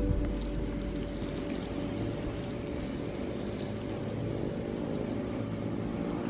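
Water showering steadily from the rose of a plastic watering can onto mulched soil around seedlings.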